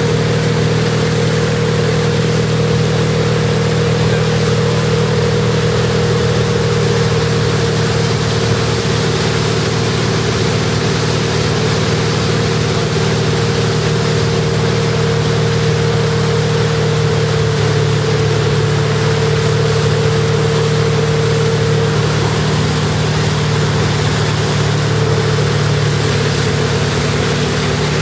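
Tow boat's engine running steadily at an even pitch, over a constant hiss of water and wind.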